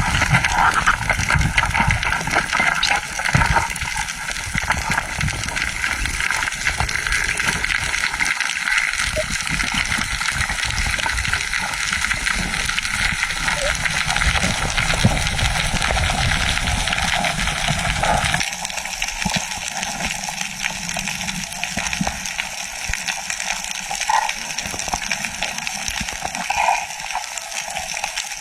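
Steady rushing, gushing water noise as heard through a camera recording underwater while diving; about two-thirds of the way through the deep low rumble drops out abruptly.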